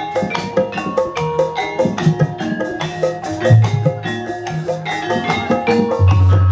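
Javanese gamelan ensemble playing: a dense, rhythmic pattern of struck notes from bonang kettle gongs and metallophones over kendang drum strokes, with a deep low note about three and a half seconds in and another near the end.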